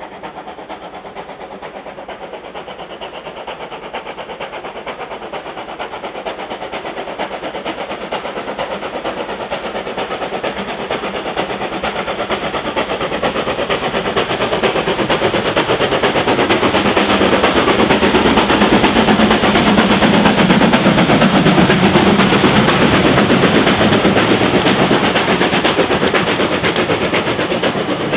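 Steam locomotive and its train drawing closer, the sound building steadily until it is loudest about twenty seconds in, then easing slightly as it passes.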